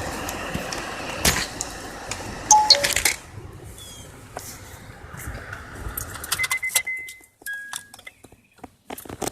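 A car idling, shut off about three seconds in, followed by clicks, clunks and keys jangling, with a few short electronic tones.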